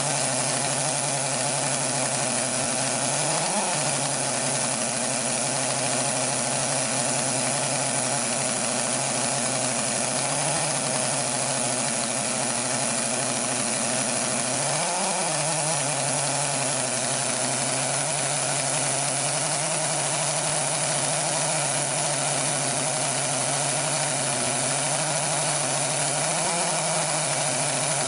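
GISON GP-26DH pneumatic SDS-plus rotary hammer drill running under load, boring a 22 mm bit into concrete: a loud, steady air-motor drone whose pitch rises briefly about four times.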